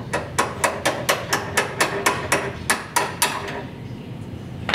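Hammer tapping a metal punch in a quick even run of sharp strikes, about four a second, driving the stuck blade-elevation shaft out of a SawStop table saw's gear. The tapping stops a little after three seconds in, with one more strike at the very end.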